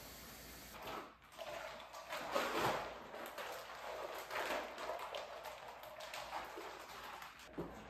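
Water sloshing inside a clear plastic bag and the thin plastic crinkling as the bag is swirled and squeezed to rinse it out, after a faucet's steady run stops about a second in. The sloshing and rustling come in irregular surges, loudest a couple of seconds in.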